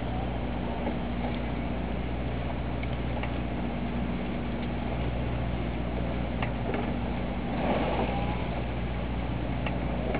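Steady low hum of a boat's motor running at idle, with a few faint ticks and a brief louder rush of noise about eight seconds in.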